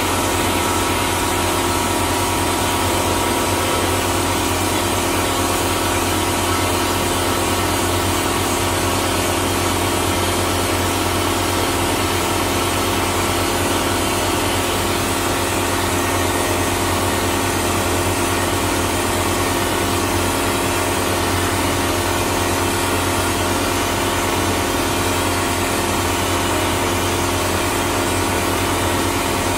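Vapor blaster running continuously: a steady hiss of compressed air and water-abrasive slurry jetting from a 3D-printed plastic nozzle onto a metal part, over a steady machine hum.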